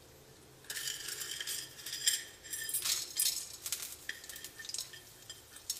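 Chana dal crackling in a little hot oil in an iron wok, with light metal clinks, starting just under a second in.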